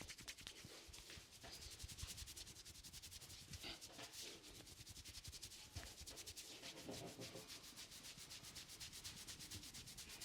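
Faint, quick rubbing of hands over hair and scalp during a head massage, a fast even run of brushing strokes, several a second.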